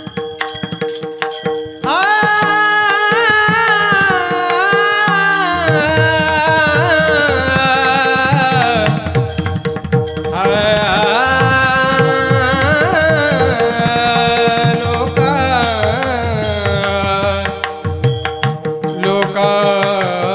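Varkari kirtan music: a male voice singing long, drawn-out gliding notes over a mridang drum beat and a steady drone. After a softer opening, the voice comes in strongly about two seconds in.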